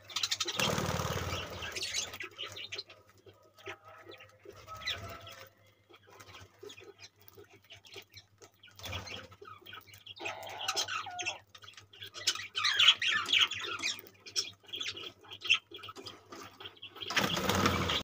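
Budgerigars chirping in short bursts and wings flapping as birds fly off the seed dish. There are bursts of flapping near the start and again near the end, and a cluster of chirps in the middle to second half.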